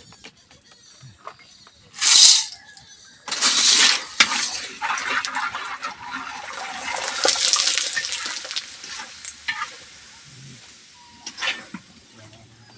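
Macaroni dropped into hot cooking oil in a wok, hissing loudly in two bursts about two and three seconds in, then sizzling steadily as it is stirred with a metal skimmer. The frying dies down near the end.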